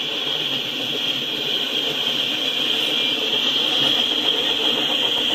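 Autorack freight cars rolling past on the rails, a steady rumble of wheels and cars with a steady high-pitched tone above it.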